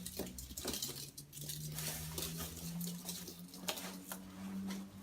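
Packaging being handled and unpacked: rustling with scattered light clicks and knocks, over a low steady hum.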